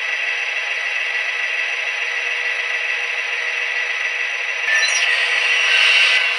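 Soundtraxx Tsunami2 EMD sound decoder playing a diesel engine sound through a model locomotive's small speakers, steady and thin with no bass. About two-thirds of the way in, after a click, a louder hissing, scraping sound joins it.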